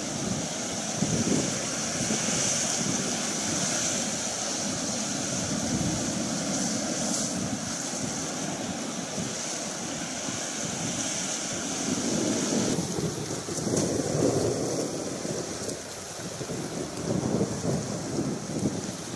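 Wind gusting across the microphone, with the wash of the sea behind it.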